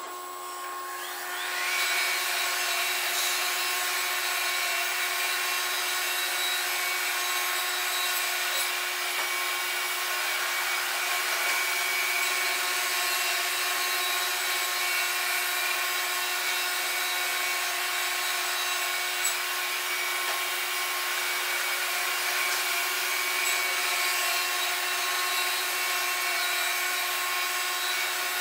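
Wood-Mizer LT50 band sawmill cutting an oak log: a steady machine whine of several held tones that comes up about a second in and holds level.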